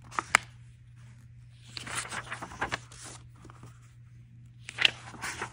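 Paper pages of a hardcover book being turned by hand: a couple of small clicks near the start, then two papery rustles, one about two seconds in and one near the end.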